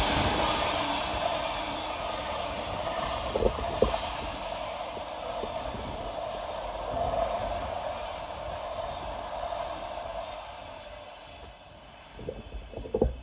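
Container freight train's wagons rolling past on the rails, the noise fading steadily as the end of the train draws away. A few short knocks come about three and a half seconds in and again near the end.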